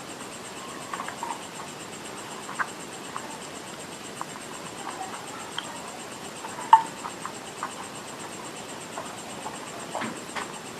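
Close-miked chewing of edible clay: scattered small crunches and wet mouth clicks over a faint steady hiss, with one sharper crunch about two-thirds of the way through and a few more near the end.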